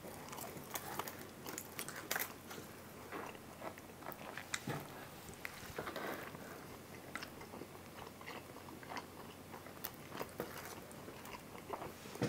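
A person biting into and chewing two pizza slices stacked together, a pepperoni slice and a buffalo chicken slice: a string of small, faint clicks from the mouth and food throughout.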